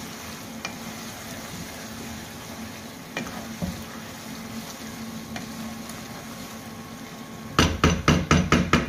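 Chicken in masala sizzling steadily in a nonstick frying pan as it is stirred with a wooden spatula, with a few light clicks of the spatula on the pan. Near the end comes a quick run of about seven loud, sharp knocks, the spatula tapped against the pan.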